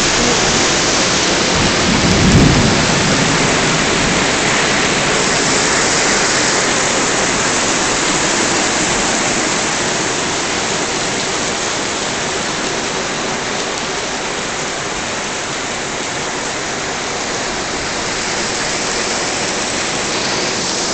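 Heavy rain and hail of a hailstorm pelting steadily down on the ground and surfaces, with a brief low rumble just after two seconds in.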